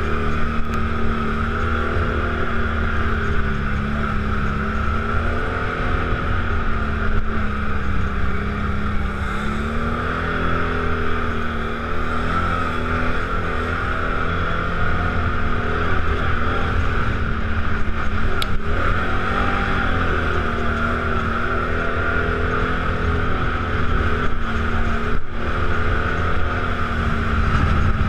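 ATV engine running under way on a dirt trail, its pitch rising and falling gently with the throttle over a steady low rumble.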